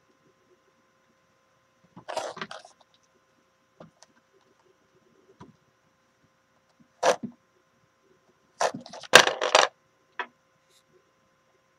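Small hard objects and tools being picked up and set down on a workbench, giving several short clattering knocks, the busiest cluster about nine seconds in, over a faint steady hum.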